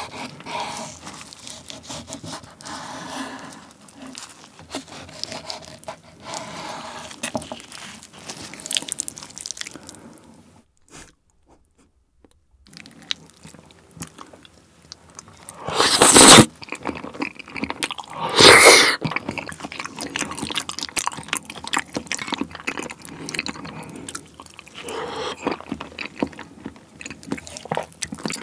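Chef's knife slicing raw salmon fillet into thin strips against a wooden cutting board, a steady scraping for about ten seconds. After a short break, two loud slurps as the sauce-dipped salmon strips are sucked in, then wet, soft chewing.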